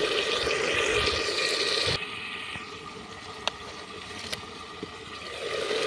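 Hot tempering oil sizzling in a pot as ground spices fry in it. The sizzle drops abruptly about two seconds in, leaving a quieter hiss with a few sharp clicks, then swells again near the end.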